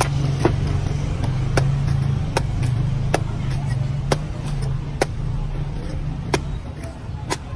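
A heavy machete chopping the husk of a green coconut held in the hand, about eight sharp strikes roughly a second apart. A steady low engine hum runs underneath.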